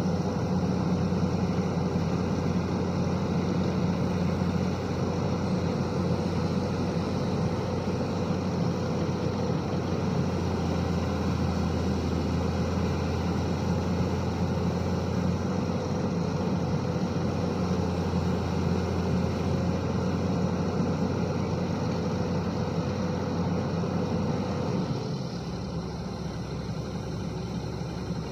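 Diesel engine of a SANY SY215C excavator running steadily at working revs, then dropping to a lower, quieter note about 25 seconds in.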